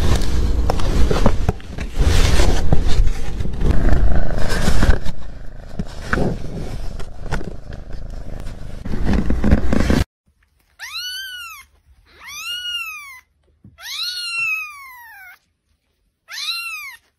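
Loud, rough noise with scattered knocks for about ten seconds, then an abrupt cut to a cat meowing four times. Each meow is high-pitched, rises then falls, and lasts about a second.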